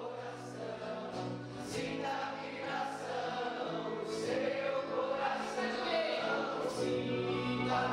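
Live shamanic music: several voices singing a wavering chant together over a held low note.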